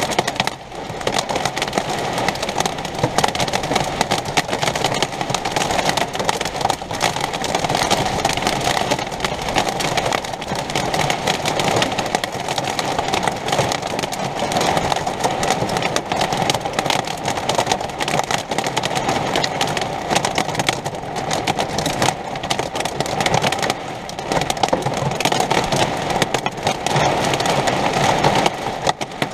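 Heavy hail and rain drumming hard on the RV's roof and body in a dense, unbroken clatter of countless small impacts.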